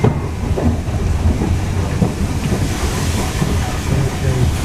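Railway passenger carriage running along the track, heard from inside: a steady low rumble of wheels on rail with irregular clattering and rattling.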